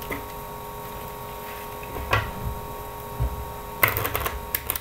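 A deck of Bicycle playing cards being handled and riffle-shuffled: a couple of soft clicks, then near the end a quick run of card flicks as the two halves riffle together. A faint steady hum sits underneath.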